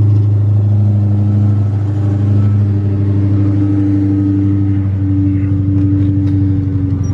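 Ford Mustang Cobra's V8 idling steadily just after a cold start.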